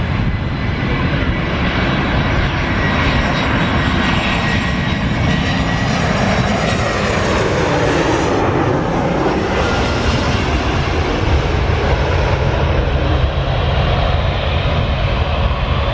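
Jet airliner flying past close by, a steady loud engine rumble and whine. The whine slides down in pitch about halfway through as the plane goes by.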